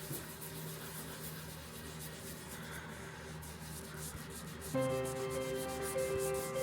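Applicator pad rubbing Rubio Monocoat oil finish into a wooden piece, mixing the colour and hardener right on the surface. Background music comes in near the end.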